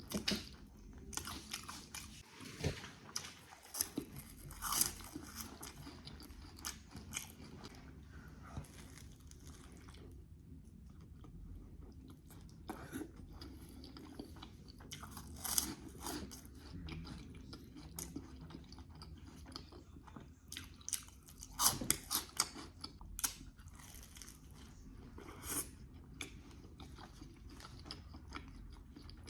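Close-up eating sounds from a homemade burrito: bites into the tortilla and wet chewing, in irregular clusters of crackly clicks with quieter chewing between.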